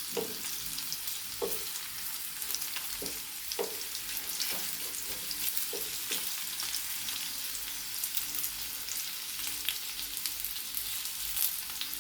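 Batter-coated banana flower florets deep-frying in hot oil, a steady sizzle. Several short knocks of a utensil against the pan come in the first half.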